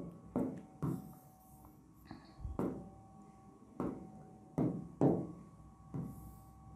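Stylus tapping against the glass of an interactive display board while selecting a new ink colour from the on-screen menu: a series of sharp, irregularly spaced taps, about eight in all.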